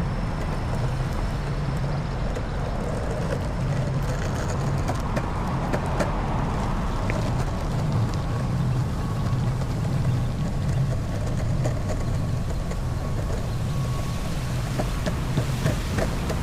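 Longboard wheels rolling over a concrete sidewalk: a steady low rumble, with occasional light clacks as the wheels cross the joints between slabs.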